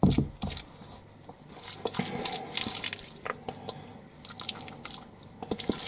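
A spoon scooping moist nut roast mixture out of a plastic mixing bowl and dropping it into a loaf tin: soft wet squelching and scraping with scattered light clicks, and a knock right at the start.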